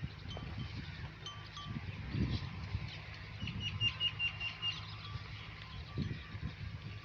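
Small bells on grazing sheep clinking irregularly, with a quick run of rings about halfway through and occasional low bumps.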